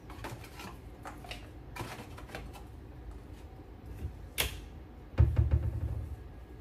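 Light clicks and taps of kitchen items being handled and put away in a cabinet. There is a sharper click about four seconds in, then a dull low thump just after five seconds, the loudest sound.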